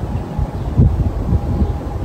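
Gusty wind buffeting the microphone as a storm front moves in: a loud, uneven low rumble that swells in gusts.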